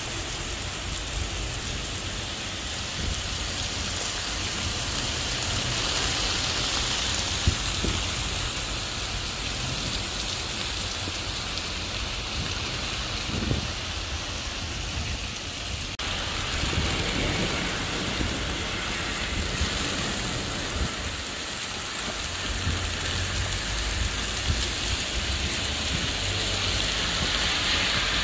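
Heavy rain pouring down on a wet street and pavement: a dense, steady hiss.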